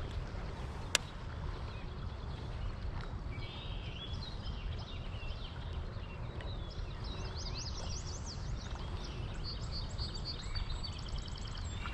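Songbirds chirping and calling in quick short phrases over a steady low outdoor rush, with one sharp click about a second in.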